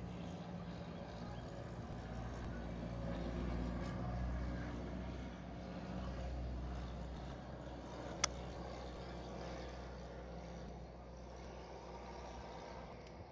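A motor vehicle engine running steadily as a low hum, with one sharp click about eight seconds in.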